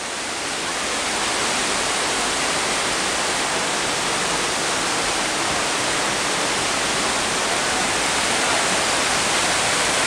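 Rushing whitewater of the Kyngyrga mountain river at its first waterfall: a steady, even rush of water that grows slightly louder over the first second or two.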